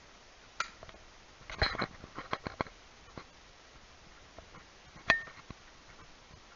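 Handling noise from the camera being picked up and moved: scattered clicks and knocks, with a cluster of rustling clicks about a second and a half in and a sharp click with a brief ring about five seconds in.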